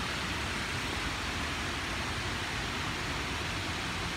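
Wind buffeting the phone's microphone: a steady rushing noise with an uneven low rumble.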